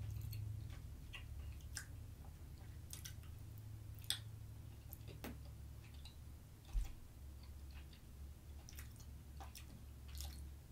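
Quiet eating sounds: a metal fork clicking against the dish every second or so, with soft chewing and wet mouth sounds over a low steady hum. A louder knock comes about seven seconds in.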